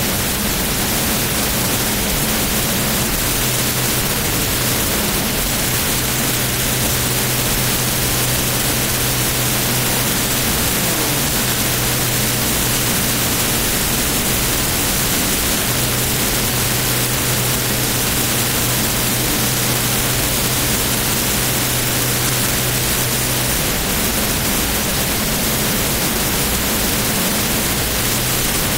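The jet engine of the Flash Fire jet truck running close to the microphone: a loud, steady rushing noise over a low hum. The hum drops away about 23 seconds in while the rushing noise carries on.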